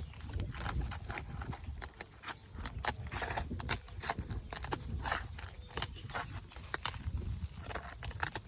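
A flat prying tool working under an old, brittle asphalt shingle to break its sealant strip: irregular clicks, taps and scrapes, over a steady low rumble.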